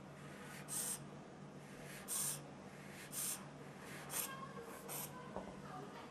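Short hissing puffs of air as a rubber squeeze bulb pumps air through a clear-tank e-cigarette atomizer, five puffs at roughly one a second, drawing vapour from the coil. A single click comes near the end.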